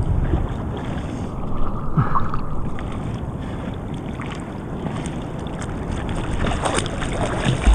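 Ocean water sloshing and lapping right at the microphone as it rides the swell at the surface, with wind on the microphone. The splashing grows busier near the end.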